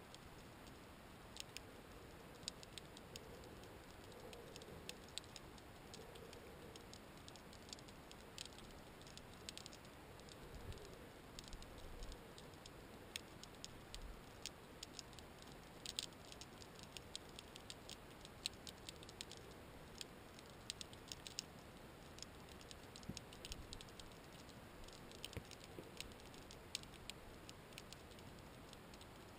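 Faint underwater ambience: a low hiss with scattered, irregular sharp clicks and crackles, several a second.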